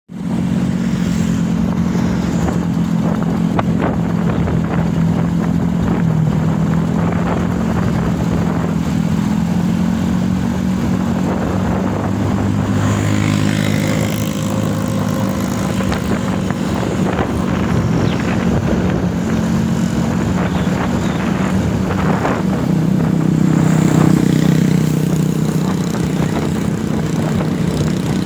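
Vintage Vespa scooters' two-stroke engines running at a steady cruise, heard from the back of a moving scooter with road and wind noise. The engine note rises and gets louder for a couple of seconds around 23 seconds in, then settles.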